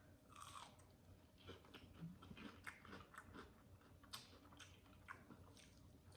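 Faint close-up chewing of fried chicken, with scattered short mouth clicks and bites.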